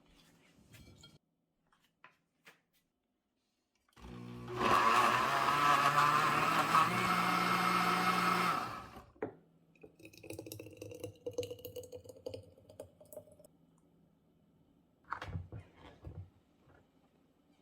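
An electric blender starts about four seconds in, runs steadily with a motor hum for about five seconds and then stops abruptly. Quieter clinks and handling sounds follow.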